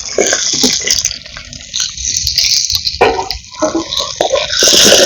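Chopped onions sizzling in hot oil in a pan over a wood fire, with scattered sharp clicks and pops through the sizzle.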